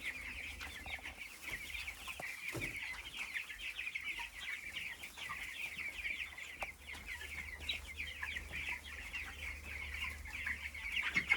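A flock of broiler chickens calling constantly, many short, high, falling cheeps overlapping with no break.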